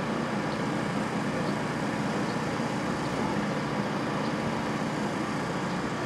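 Steady background rumble of road traffic, even and unbroken, with no single event standing out.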